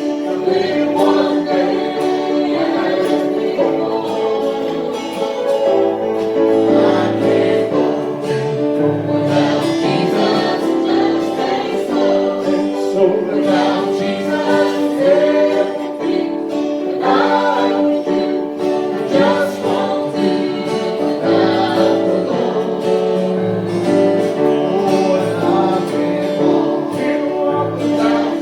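Several voices singing a gospel hymn together with instrumental accompaniment, in held, steady notes.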